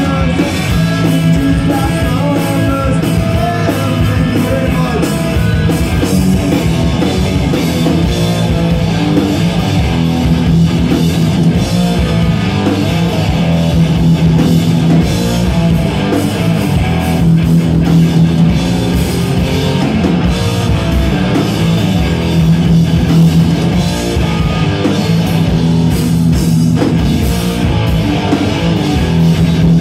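Punk rock band playing live and loud: electric guitars, bass guitar and a drum kit, going without a break.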